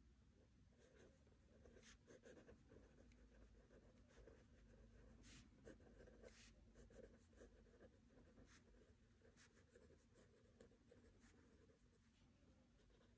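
Faint scratching of a pen writing by hand on a spiral-bound notebook page, in short, irregular strokes.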